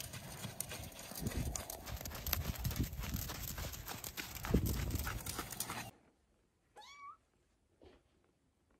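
A miniature pony's hooves falling on sand under a noisy rumble with scattered knocks for about six seconds; the sound then cuts off and a kitten gives one short meow that rises and wavers.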